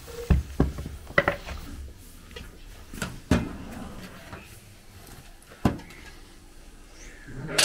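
Wooden pestle knocking in a wooden mortar as lumps of curd are pounded: a handful of irregular dull thuds, a second or more apart.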